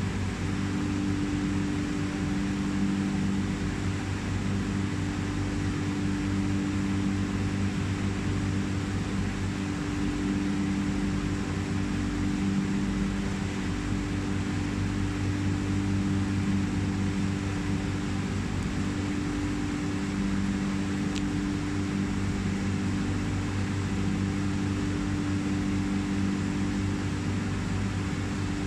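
Steady mechanical hum of aquarium equipment running, a low buzz with a constant hiss over it.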